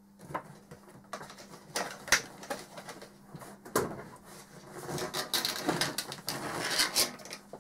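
Off-camera rummaging in a workshop: scattered knocks, clicks and clatter of objects being moved and handled, busiest in the second half, over a faint steady hum.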